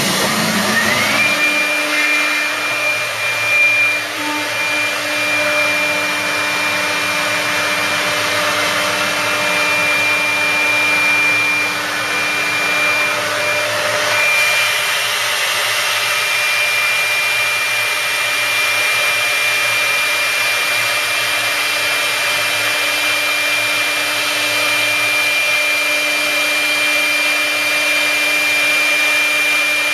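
Busellato Supereasy CNC router running: its spindle whine rises in the first second, then holds steady and high over the constant rush of the dust extraction as the bit routes a groove in a board.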